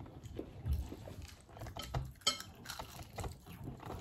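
Light clatter of dishes and cutlery being handled while eating: scattered small taps and clicks, with one sharper click a little past halfway.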